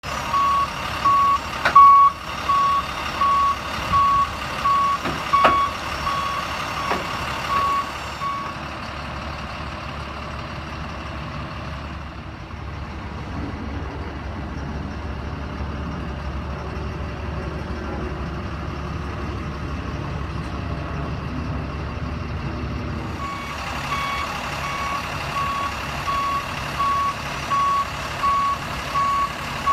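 A truck's warning beeper sounds a single high beep, repeating about every half second, while the rear-mounted attenuator is tilted on its hydraulics. There are a couple of sharp clunks in the first six seconds. The beeping stops after about eight seconds, leaving the truck's engine running low, and starts again a few seconds before the end.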